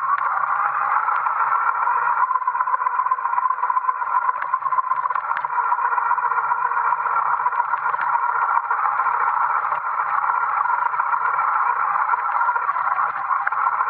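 Motor-driven electric BMX riding on gravel: a brushed motor driving the rear wheel through a 3D-printed gear reduction and chain, with tyre and wind noise, a steady rush with a faint low hum underneath.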